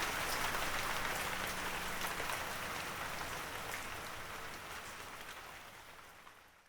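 Steady rain falling on a surface, with fine drop patter, fading out gradually and ending in silence right at the end.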